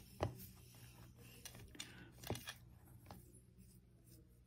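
Hands rolling and handling a soft polymer clay log, with a few faint sharp clicks of fingers and nails against the clay and work surface over a low steady hum.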